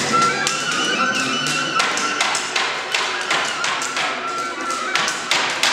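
Rapid, irregular wooden knocking and clattering, about three or four hits a second, as ski poles and skis are struck down against the floor, over music with a held high tone.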